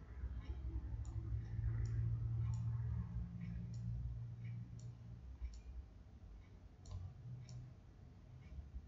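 Computer mouse clicking: single clicks at irregular intervals, about one a second, over a low steady hum.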